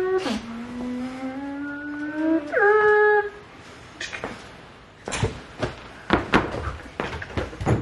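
A person imitating a siren or alarm with their voice: a long held wail rising slowly in pitch, a sudden drop to a second rising wail, then a short higher note about three seconds in. In the second half comes a run of sharp knocks and thumps.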